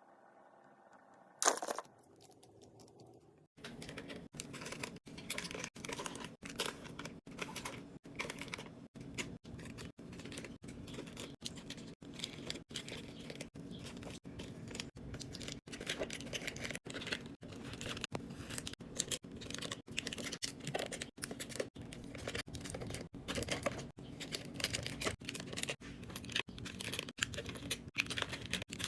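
Food packaging being handled in quick succession during a snack restock: dense crinkling and tearing of wrappers and bags, starting in earnest a few seconds in after one sharp sound near the start.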